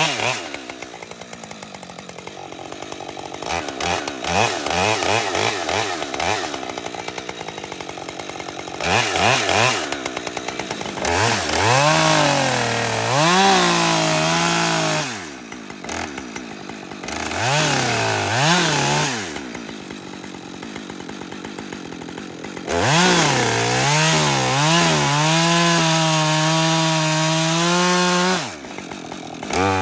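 Husqvarna 550XP two-stroke chainsaw alternating between idle and full-throttle cuts into wood. It idles, revs up and cuts three times, holding a steady high pitch under load; the longest cut comes near the end and lasts about five seconds before the saw drops back to idle.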